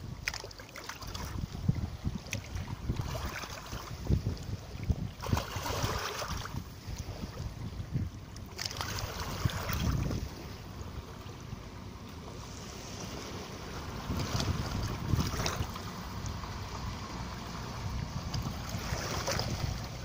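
Small waves lapping onto a sandy, pebbly shore, each wash swelling and fizzing back every few seconds, over a low wind rumble on the microphone.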